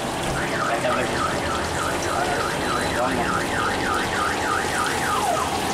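An electronic alarm warbles, its tone rising and falling about three times a second, then glides down and stops near the end. Under it, chicken pakora sizzles steadily as it deep-fries in a wok of hot oil.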